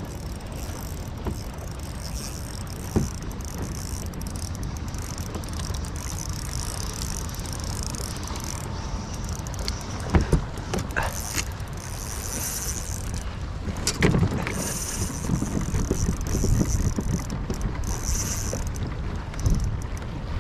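Spinning reel being wound in against a hooked fish, with wind buffeting the microphone over the steady sound of the water; a few sharp knocks, the loudest about halfway through.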